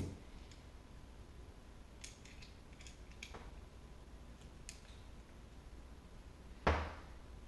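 Faint clicks of small metal parts as the selector gears are worked into an E&L MK18 airsoft gearbox shell by hand, then a dull knock about seven seconds in.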